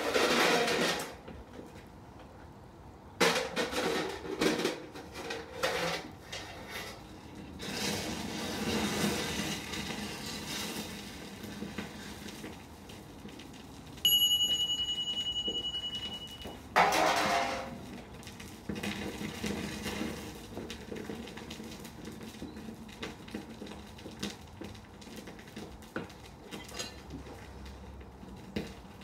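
Small metal cubes clinking and clattering as they are dropped into a hot crucible in a gas-fired melting furnace, in several handfuls. A steady high whistle sounds for a few seconds about halfway through, followed by another loud clatter, then light scattered clicks.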